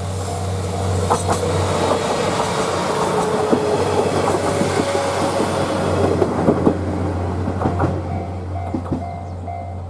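Two-car JR KiHa 48 diesel railcar set passing a level crossing: engine drone and wheels clattering over the rail joints. The crossing's alternating warning bell rings under it and comes through clearly again in the last two seconds as the train clears.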